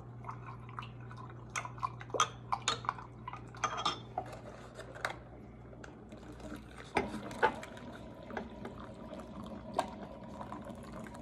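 A metal spoon clinks repeatedly against a glass measuring cup as a cornstarch-and-water mixture is stirred. About seven seconds in, the milky liquid is poured from the cup into a paper coffee filter set in a glass.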